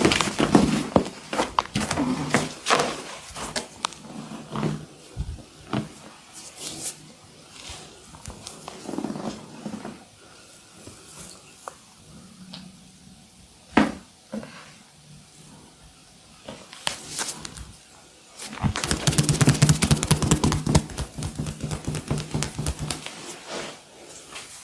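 Hand massage on skin: scattered slaps and rubbing, a single sharp click about halfway through, then a few seconds of rapid, even tapping near the end.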